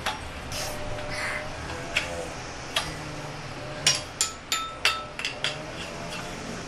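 A toy xylophone struck with a mallet: about eight uneven, separate strikes, several leaving a short ringing note, most of them bunched together past the middle.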